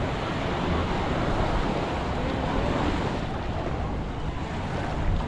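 Sea surf washing onto a beach, a steady rushing of waves, with wind buffeting the microphone in a low rumble.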